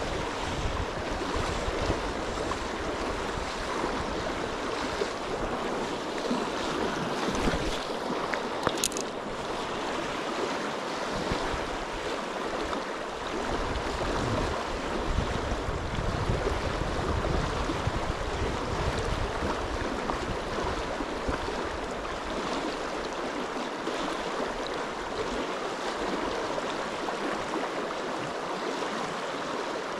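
River Tweed flowing: a steady rush of water, with wind buffeting the microphone at times.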